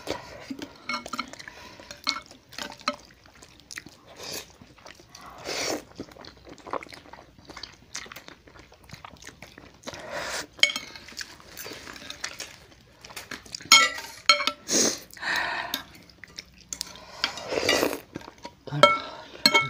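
Eating noises from soupy instant noodles: slurps and chewing, with metal spoons and forks clinking and scraping against ceramic bowls in scattered strokes.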